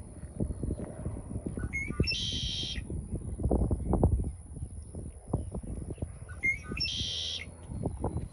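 A bird calls twice, about two and seven seconds in, each time a few short notes followed by a buzzy trill. Under it run the steady thumps and crunch of footsteps on a packed dirt and gravel trail.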